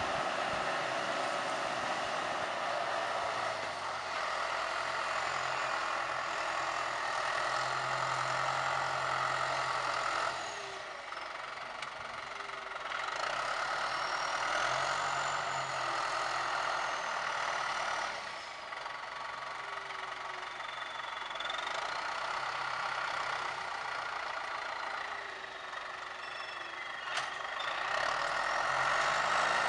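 John Deere tractor's diesel engine running steadily under load as it pulls a tillage implement through the field, easing off in level twice. A faint high whine rises and falls slowly over it.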